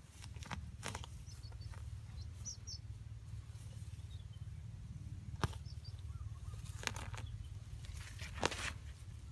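Outdoor ambience with a steady low rumble, a few sharp clicks scattered through it, and faint high bird chirps, twice.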